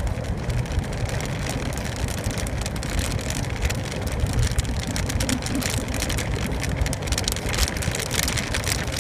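Inside a moving car on a wet road: a steady low rumble of engine and tyres, with rain pattering against the windshield and roof as many fine ticks throughout.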